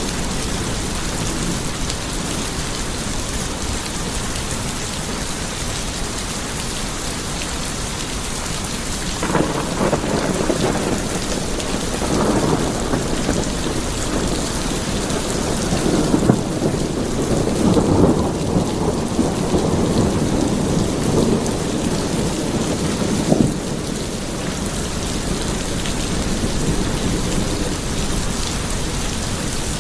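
Steady rain falling, with rolling thunder rumbling in about a third of the way through. The thunder swells, has a couple of sharper peaks, and cuts off near the end, leaving the rain alone.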